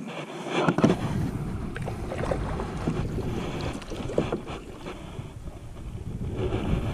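Wind buffeting an action camera's microphone, mixed with knocks and rubbing as the camera is handled aboard a plastic kayak. The loudest knock comes about a second in.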